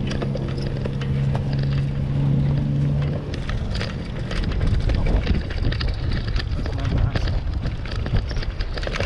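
Wind rumbling on the microphone of a moving bicycle, with a steady engine hum that cuts off about three seconds in. After that come rapid irregular clicks and knocks as the bike rolls onto the wooden boardwalk planks.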